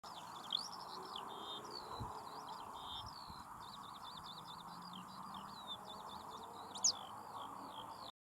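A small songbird singing a long, fast, varied song of high chirping notes, over a steady background hiss; the song cuts off suddenly near the end.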